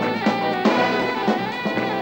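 Big band playing swing jazz: an alto saxophone plays a lead line with bending notes over the drum kit and band.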